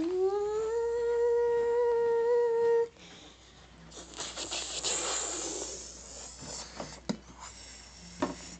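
A person humming one long note that slides up and then holds steady for about three seconds before stopping abruptly. It is followed by a soft hissing noise and two sharp clicks near the end.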